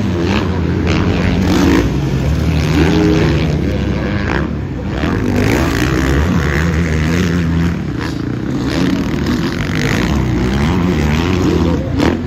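Motocross bike engines revving hard and easing off as riders pass, the pitch rising and falling over and over.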